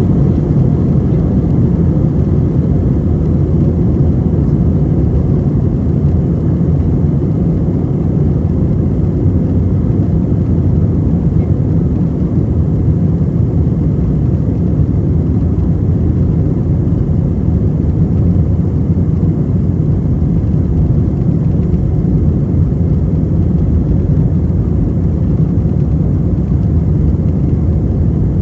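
Airliner's jet engines and airflow during takeoff: a steady, loud low rumble that holds even without rising or falling.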